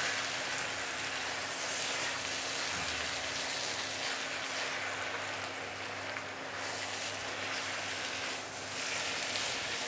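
Kwetiau (flat rice noodles) with vegetables sizzling steadily in a hot wok while being stirred and turned with a spatula.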